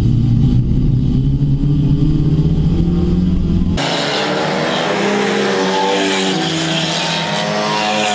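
Rookie rod race car engine heard from inside the cabin, a steady low drone. Then the sound switches abruptly to several small hatchback race cars heard from trackside, their engines revving and rising in pitch as they accelerate out of a bend.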